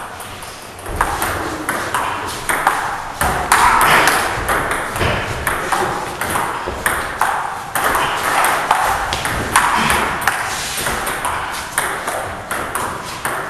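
Table tennis rally: a celluloid ball clicking off rubber bats and the table top in a quick, uneven run of sharp pings.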